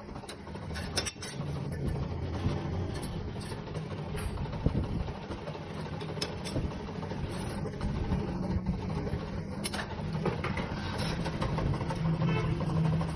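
Metal lathe running with a steady low hum and scattered clicks and ticks while steel wire is wound into a coil spring.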